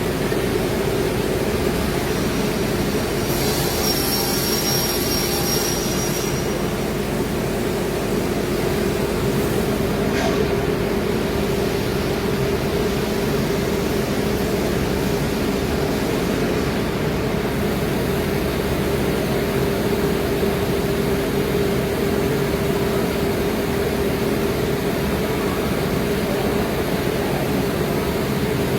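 CNC router cutting plywood: a steady machine hum and hiss with one strong held tone, and a brief higher whine with hiss about three to six seconds in.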